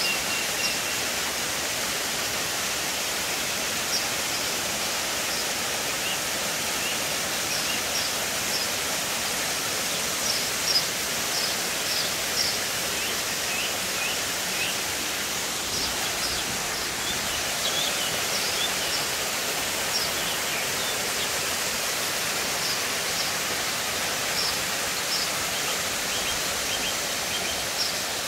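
Steady rush of a waterfall pouring into a rock pool. Short, high bird chirps come and go over it.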